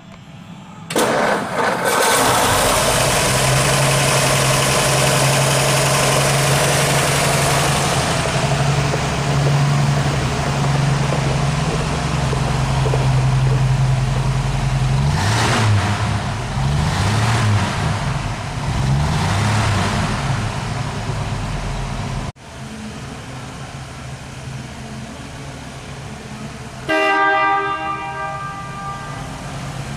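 1955 Ford Mainline's 235 cubic-inch inline six starting up about a second in and idling steadily, then revved several times, rising and falling, before settling back to a quieter idle. Near the end the car's horn honks once for about a second.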